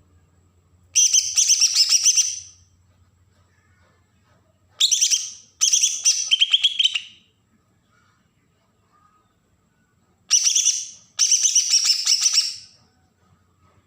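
Cucak ijo (green leafbird) song of the besetan type: quick bursts of rapid, chattering high notes, coming in pairs with pauses between, used as a lure song to provoke young birds into singing.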